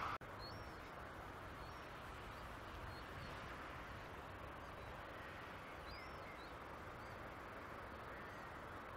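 Steady, faint outdoor background hiss with a handful of faint, short, high-pitched chirps scattered through it, several of them close together about six seconds in.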